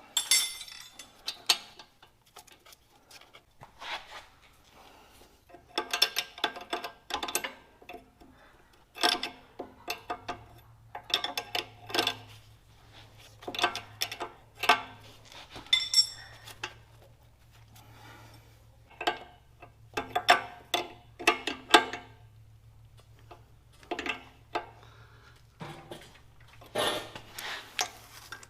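Open-end wrenches clinking and clicking against the metal O-ring face seal fittings of backhoe hydraulic hoses as the fittings are turned, in short irregular bursts of metallic taps. A faint low steady hum sets in about ten seconds in.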